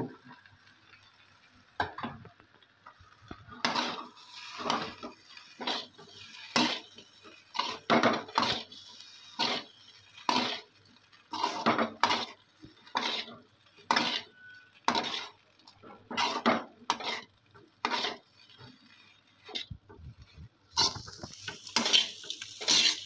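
Steel ladle scraping and clinking against a metal pan as chopped parotta is stirred and tossed, in repeated strokes about one or two a second, sparse at first and denser near the end.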